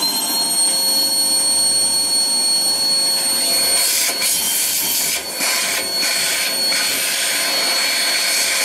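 Vacuum cleaner running at full speed, a loud rush of air with a steady high whine, as its nozzle sucks loose buffed rubber bits out of the inside of a motorcycle tyre. The sound shifts briefly a few times in the second half as the nozzle moves.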